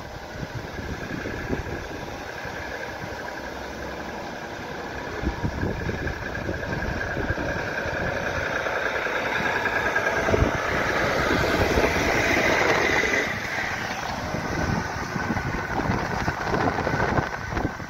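Volvo heavy recovery truck's diesel engine and tyres on the road as it approaches and passes towing a single-decker bus. The sound grows louder to a peak about two-thirds of the way through, then eases off.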